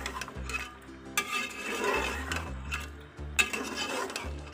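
Steel ladle stirring and scraping beef frying in oil in an aluminium pressure-cooker pot, with a couple of sharp clinks of the ladle against the pot. The meat is being browned (bhuna) in the oil. Soft background music runs underneath.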